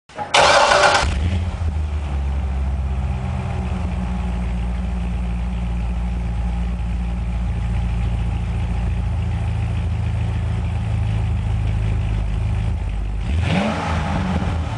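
A 2009 Corvette Z06's 7.0-litre LS7 V8 on its stock exhaust starts with a loud flare, then settles into a steady, deep idle. Near the end the throttle is blipped once, and the pitch rises and falls back to idle. The sound echoes off the concrete garage walls.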